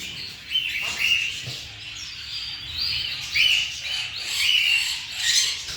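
Small pet parrot chirping: a run of short, high-pitched chirps, some gliding up or down in pitch.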